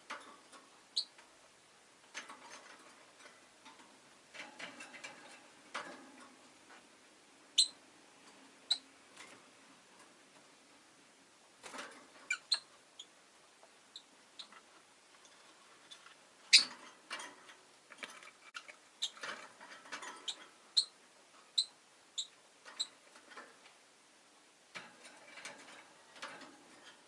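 Rosy-faced lovebird giving short, sharp, high chirps at irregular intervals, with soft clicks and rustling between them.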